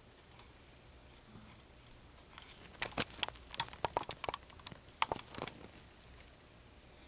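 A quick, irregular run of sharp clicks and crackles, starting about two and a half seconds in and lasting about three seconds.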